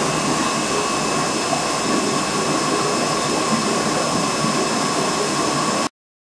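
Aquarium filtration equipment running: a steady rushing hiss of moving water and air with a faint steady hum. It cuts off suddenly near the end.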